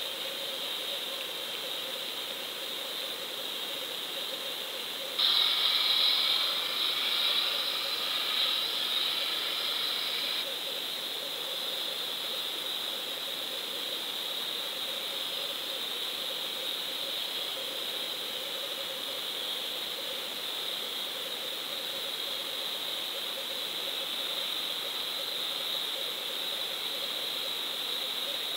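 Steady underwater hiss picked up by a submerged GoPro in its housing on the bottom. About five seconds in, a louder sound with several held tones cuts in abruptly and stops just as suddenly about five seconds later.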